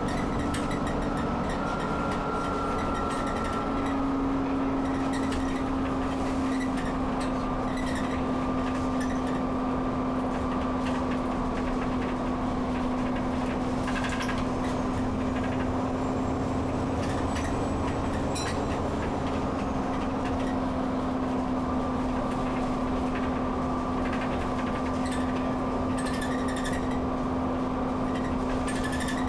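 Inside an Alexander Dennis Enviro 400 double-decker bus under way at a steady speed: the engine's steady drone with a fainter higher tone above it, over road noise, with occasional small rattles from the interior.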